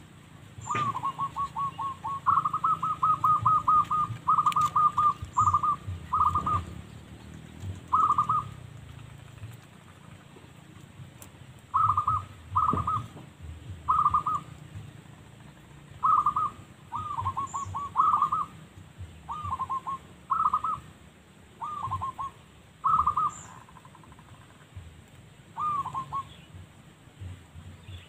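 Zebra dove (perkutut) cooing: bursts of quick staccato coos repeating every second or two, with a longer run of notes in the first few seconds.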